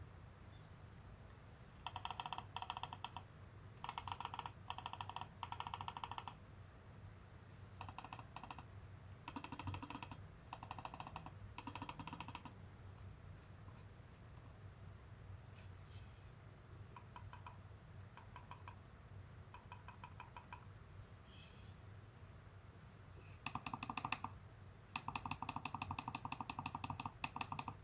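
Clicking of a Logitech MX Anywhere 3S silent mouse, in quick runs of rapid clicks each lasting a second or two, with pauses between them. The runs in the middle are softer, and the last two runs near the end are the loudest.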